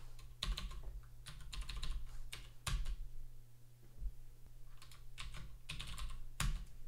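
Computer keyboard typing: several bursts of quick keystrokes with short pauses between them, over a faint steady low hum.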